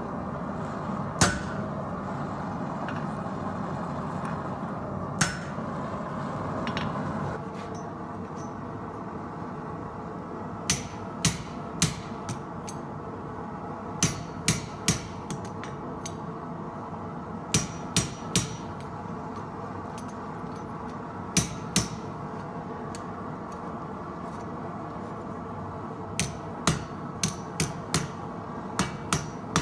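Blacksmith's hand hammer striking hot steel on an anvil while forging a bottle opener. The blows come in short groups of two to four with pauses between, over a steady background noise that drops in level about seven seconds in.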